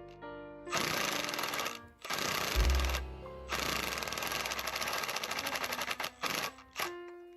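Background music: held notes that change pitch in steps, over bursts of fast, noisy percussion, with a heavy low hit about two and a half seconds in.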